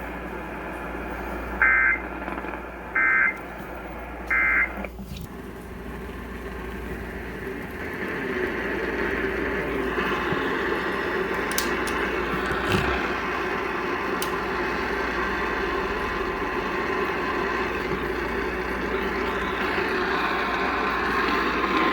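Emergency Alert System end-of-message data bursts from a radio receiver: three short, shrill two-tone warbling bursts about 1.3 seconds apart, marking the end of the severe thunderstorm warning. The receiver then carries a steady static hiss and hum that grows louder about eight seconds in, with a few faint clicks.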